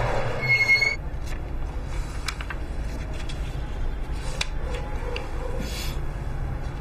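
Steady low room hum with a few faint scattered clicks and rustles from a small notebook being handled. About a second in, a louder rushing noise and a short high tone cut off.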